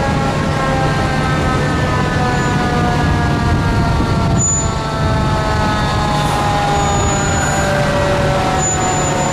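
Fire truck sirens slowly falling in pitch over the steady low rumble of fire engines' diesel engines as the convoy crawls past, with a few brief high squeals.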